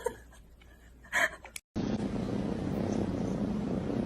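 Domestic cat purring steadily, starting just under two seconds in after a near-silent moment.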